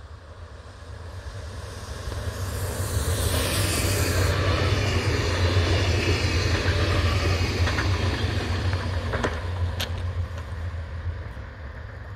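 ODEG double-deck electric multiple unit passing close by: its running noise swells as it approaches, stays loud for several seconds as the cars go by with a few sharp clicks, then fades as it moves away.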